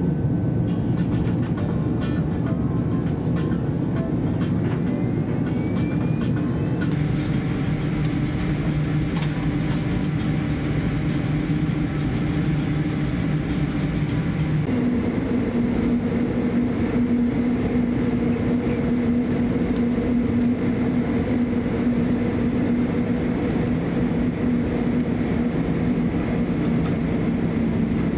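Steady cabin noise inside a Boeing 787-10 airliner during pushback and taxi: a constant rumble and hum. About halfway through, the low drone gives way to a higher steady hum.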